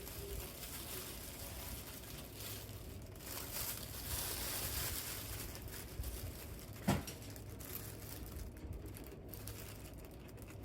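Packaging crinkling and rustling as a package is opened and handled by hand, with one sharp tap about seven seconds in.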